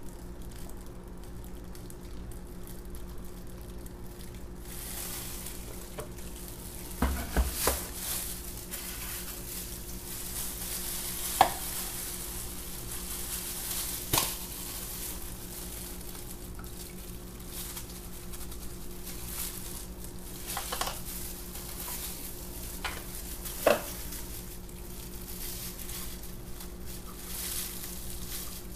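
Soap batter poured from one plastic pitcher into another, with soft rustling and a few light knocks as the plastic pitchers and a silicone spatula are set down and handled on a plastic cutting board. A steady low electrical hum runs underneath.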